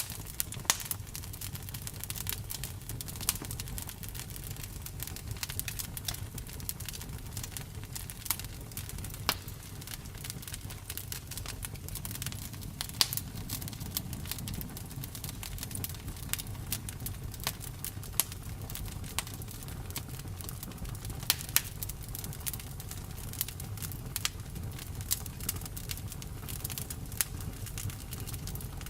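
Campfire crackling: irregular sharp pops and snaps over a low steady rumble, with a few louder pops about halfway through and again about two thirds of the way in.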